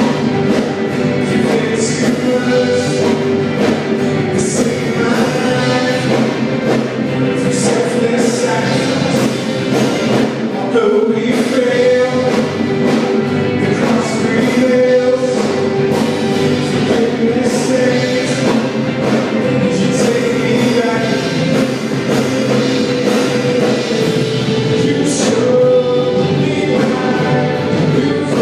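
Live church worship band playing a song, with guitars and drums under sung vocals and occasional cymbal crashes.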